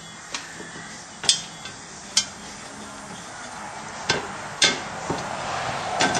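Metal tools and parts clinking and knocking during a shifter install, about seven sharp irregular clinks. The loudest come a little over a second in and about four and a half seconds in.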